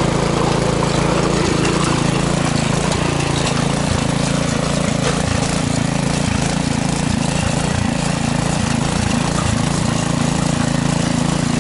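Small petrol rotary tiller (garden cultivator) running steadily under load as its tines dig through dry soil, with a few light knocks in the middle.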